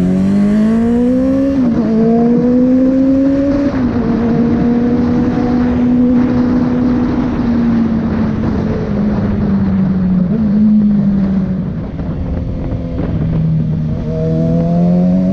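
Honda CB650F's inline-four engine through a Jeskap 4-2-1 full sport exhaust, pulling away hard with the pitch climbing, two quick upshifts in the first four seconds. It then runs at steady revs, eases off, and climbs again near the end.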